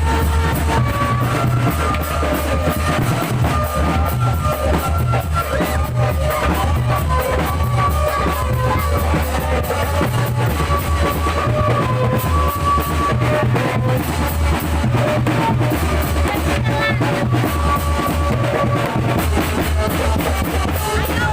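Loud music for a barongan dance: heavy drums beating steadily under a held melody line that steps from note to note.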